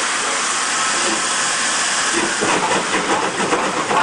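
Rebuilt Merchant Navy class steam locomotive 35005 Canadian Pacific hissing loudly as steam vents from its open cylinder drain cocks. About two and a half seconds in it starts away, and a quick, uneven run of exhaust beats comes in over the hiss.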